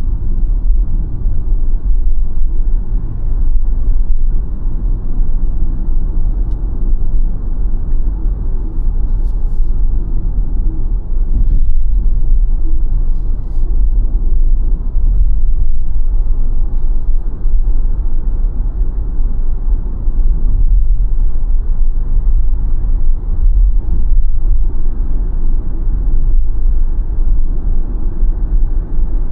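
Steady low road and tyre rumble from a BYD Sealion 7 dual-motor electric SUV on the move, with no engine note.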